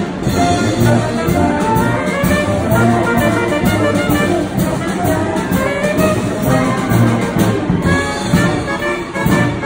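Military wind band playing a piece together: brass, with tubas, trombones and trumpets, and saxophones.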